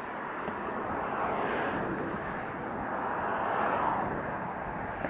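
Road traffic passing: a steady rush of tyre noise that swells and fades as vehicles go by.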